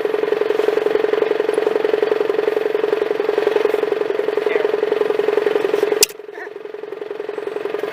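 Engine running steadily at a constant speed, with a sharp click about six seconds in, after which it is abruptly quieter.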